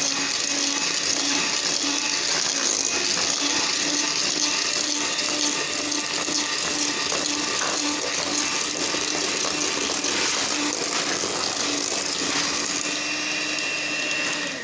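Electric mixer running steadily at one speed while mixing orange cake batter, then switched off right at the end.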